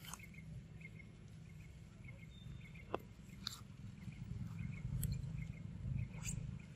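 Quiet outdoor ambience: a faint high chirp repeating about twice a second, a few sharp clicks and ticks, over a low steady rumble.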